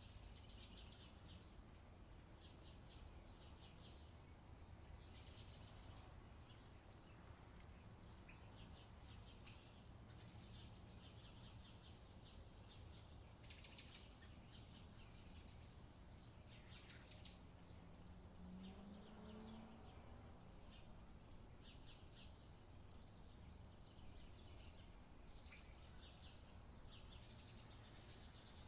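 Faint outdoor summer ambience: small birds chirping in short, quick trills every few seconds over a low, steady background rumble.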